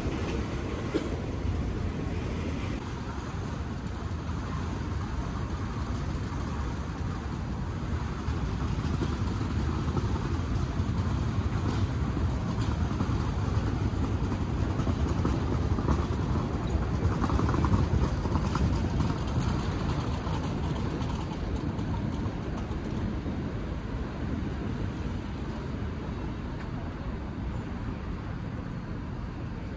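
City street ambience: steady road traffic noise, getting a little louder around the middle.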